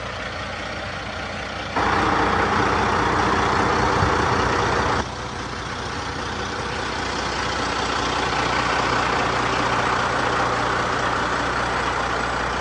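Heavy diesel engine of a Kenworth prime mover running as the B-double truck rolls slowly past. A loud steady hiss starts abruptly about two seconds in and cuts off about three seconds later. After that the engine and rolling noise swell gently.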